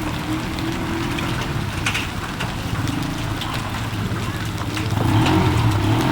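Heavy rain falling, with scattered sharp drop taps over a steady wash. A low steady hum runs underneath and grows louder about five seconds in.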